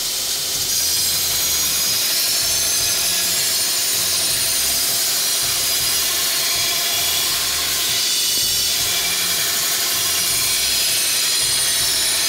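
Belt grinder running with a high-carbon steel sword blade pressed against the abrasive belt: a steady, loud grinding hiss.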